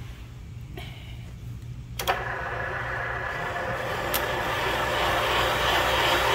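Valve seat machine's spindle motor running with a low hum; about two seconds in, the cutter bites into the cast-iron Mopar 452 cylinder head, cutting the counterbore for a new valve seat insert with a rough hissing cut that grows steadily louder.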